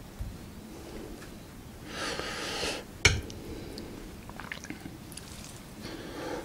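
Close-miked chewing of jjapaghetti noodles, with a brief wet slurping noise about two seconds in and one sharp click about a second later.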